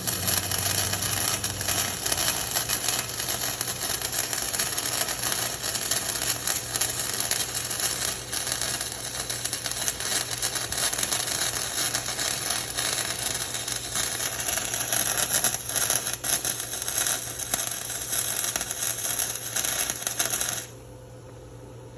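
Flux-core wire welder arc crackling continuously as a weld bead is run on steel, cutting off suddenly near the end.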